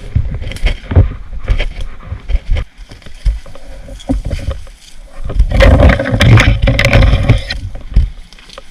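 Irregular low thumps with rustling noise, rising to a loud stretch of dense rustling for about two seconds past the middle.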